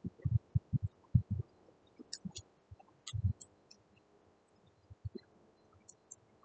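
Typing on a laptop keyboard: an uneven run of dull key thumps in the first second and a half, a few more around three seconds in, with scattered light clicks.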